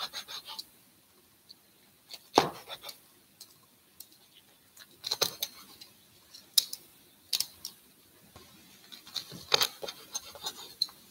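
Kitchen shears snipping and a large knife cutting through grilled squid on a wooden cutting board: scattered sharp clicks, snips and knocks a second or two apart.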